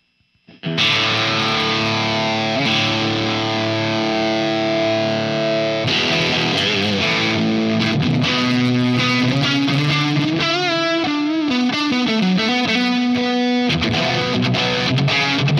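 Electric Stratocaster-type guitar played through the Line 6 Pod Go's Deez One Vintage distortion model, its take on a Boss DS-1, with the drive set high. A chord is struck about a second in and left ringing for about five seconds. Then comes a single-note lead line with string bends and vibrato.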